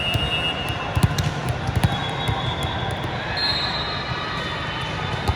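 Volleyballs being struck in a large, echoing hall, with sharp hits about a second in and again near two seconds, over a constant din of play. High-pitched squeals come briefly at the start and again for a second or two past the middle.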